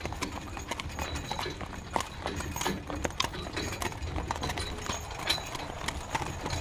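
Horse-drawn carriage: a horse's hooves clip-clopping in a quick, uneven patter of knocks, over a steady low rumble.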